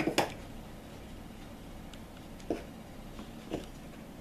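Light knocks and clatter of circuit-board modules being handled and set down on a workbench: a double knock at the start, then single taps about two and a half and three and a half seconds in.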